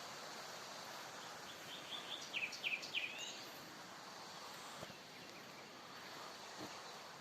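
A bird calling: a short run of quick, falling high notes about two seconds in, over a steady outdoor background hiss.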